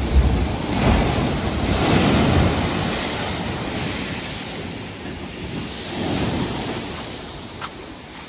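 Ocean surf surging between large rocks and washing up onto a pebble beach, as foaming water. The biggest surge comes in the first few seconds and eases off, and a smaller wave swells again about six seconds in.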